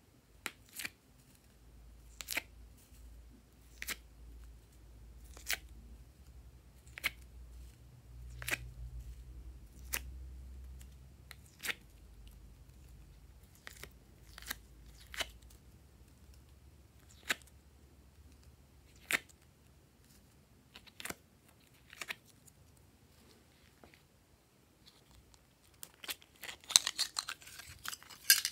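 Sharp clicks about every second and a half as cubes are popped out of a plastic heart-shaped cube tray and dropped into slime. Near the end, a dense run of crackling as glossy slime is lifted and squeezed.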